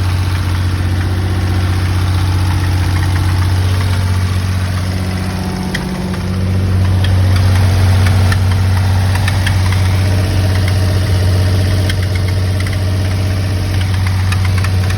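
Twin-turbo V6 of a 1991 Mitsubishi 3000GT VR4 idling steadily, with scattered light ticks over the hum. About six seconds in, the idle dips briefly and then settles a little louder.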